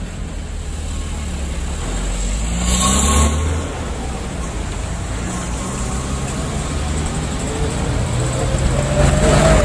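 Dashcam recording of a moving vehicle: steady engine and road rumble, with a louder rush of noise about three seconds in and again near the end.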